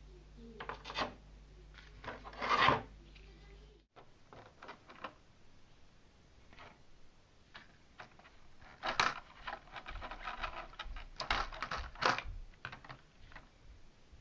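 Hands handling a small RC car and its clear plastic packaging tray. Irregular scraping, rubbing and crinkling comes in short bursts, loudest about two and a half seconds in and again in a busier stretch between about nine and twelve seconds in.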